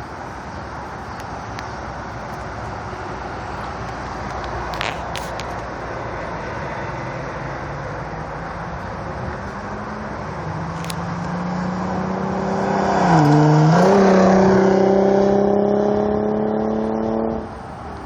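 Lexus car engine accelerating on a fly-by. The engine note climbs and grows louder, dips sharply in pitch and recovers about 13 seconds in at its loudest, then keeps rising slowly before cutting off abruptly near the end.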